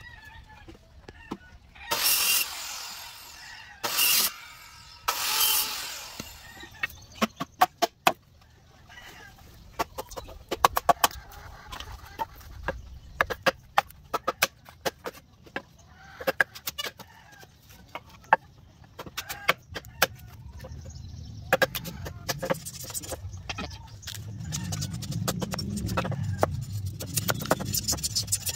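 A bolo knife striking and splitting a bamboo stick: a long run of sharp, irregular knocks. Two loud bursts of about a second each come near the start, chickens cluck in the background, and a low rumble builds in the last several seconds.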